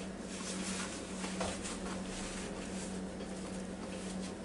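Quiet kitchen room tone: a steady low electrical hum with faint scattered clicks.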